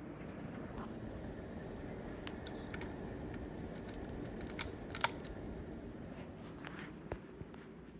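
Ceiling fan running with a steady low whir, broken by a few sharp clicks, most of them bunched together about four to five seconds in.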